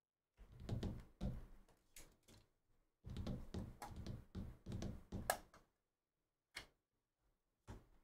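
Hands unwrapping and opening a plastic-wrapped trading-card hobby box: two spells of crinkling and scraping handling noise, then two single taps.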